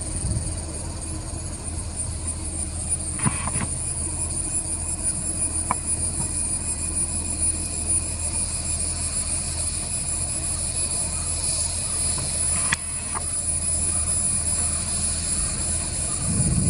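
Boeing 787-8 Dreamliner's GEnx jet engines running at taxi power as the airliner rolls along the runway: a steady low rumble with a high whine, broken by a couple of sharp clicks.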